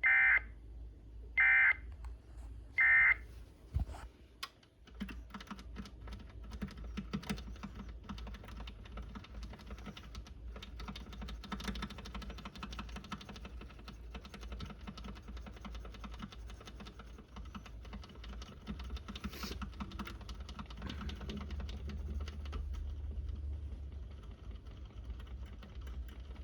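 Three short bursts of warbling EAS data tone, the Emergency Alert System end-of-message code that closes the alert, each under a second and about a second and a half apart. Then a faint steady low hum with irregular faint clicking.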